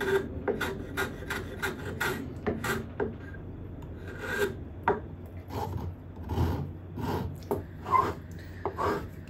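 Small metal hand plane shaving the edge of a wooden block, quick repeated scraping strokes at about two a second.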